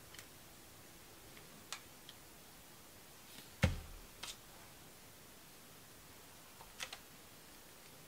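Hands handling glass cabochons and a plastic glue bottle on a table: scattered light clicks and taps, with one louder knock about three and a half seconds in.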